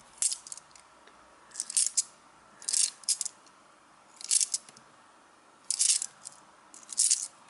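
Bimetallic £1 coins clinking against each other as they are slid off a hand-held stack one at a time: six short bursts of metallic clicks, about one every second and a bit.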